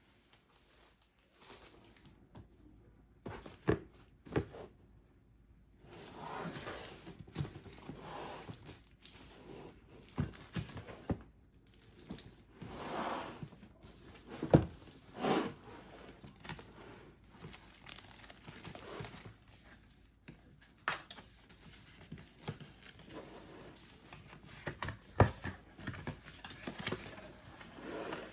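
Cardboard box and plastic packaging being opened by hand: tearing, crinkling and rustling in irregular stretches, with several sharp knocks.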